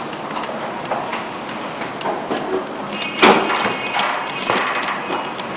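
A screwdriver turning a screw into a DVD drive's chassis, giving small scattered clicks and ticks, with one sharper knock about three seconds in, over a steady hiss.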